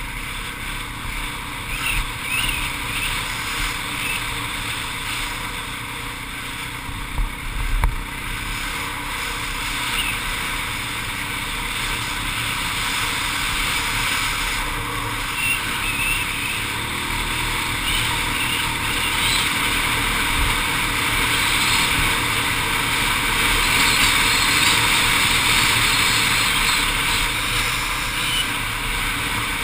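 ATV engine running under way across sand, with wind rushing over the microphone, growing somewhat louder in the last third. A couple of sharp knocks about seven seconds in.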